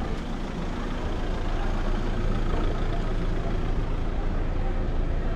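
A motor vehicle's engine running steadily, a low hum over street noise, with faint voices behind it.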